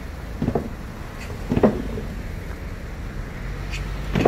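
Steady low traffic rumble with a few short, dull knocks spread through it, the loudest near the end.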